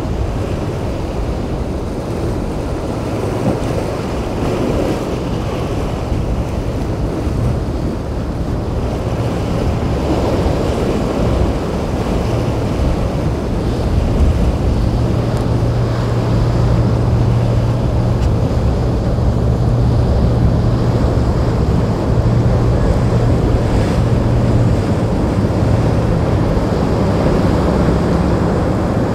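Boat engine drone over rough surf and wind on the microphone. The low engine hum is steady and grows louder about halfway through.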